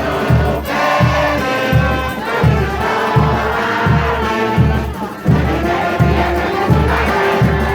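Frevo music with a steady bass-drum beat about twice a second and held melody notes above it, with a crowd.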